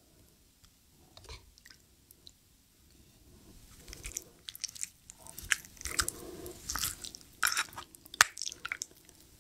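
Close-miked mouth sounds of eating a spoonful of rice soaked in spicy beef-rib soup: wet chewing and slurping with sharp clicks. Quiet at first, busiest in the second half.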